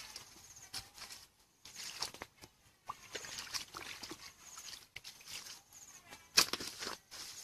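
A hoe digging in a shallow muddy stream: the blade scrapes and scoops wet mud, with feet squelching in mud and water, in scattered irregular rustles and splashes. The loudest wet hit comes about six seconds in.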